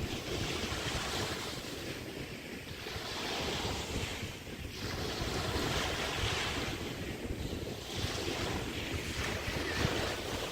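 Small Chesapeake Bay waves breaking and washing up the beach, a hissing swell about every two to three seconds, with wind rumbling on the microphone.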